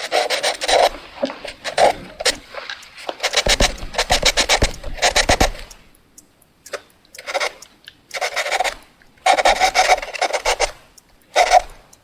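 Fast handwriting: a pen or pencil scratching across paper in quick bursts of strokes with short pauses between words. The longest run comes around the middle, and shorter flurries follow.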